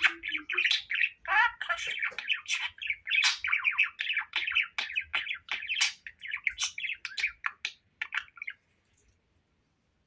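Budgerigar warbling: a rapid, continuous stream of chirps, squawks and clicks that stops abruptly about eight and a half seconds in.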